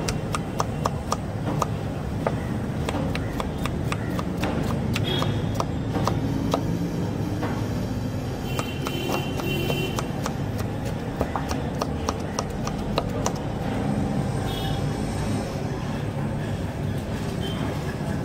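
A kitchen knife slicing tomatoes against a wooden cutting board, heard as runs of quick, sharp knocks that come and go, over steady street background noise.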